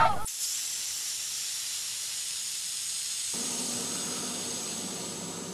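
Air hissing steadily out of a punctured bus tyre, slowly weakening. A faint low background rumble joins a little past halfway.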